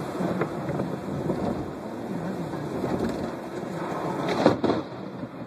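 Steady rain and road noise inside a moving car, broken about four and a half seconds in by the sudden loud crack of a lightning strike very close by.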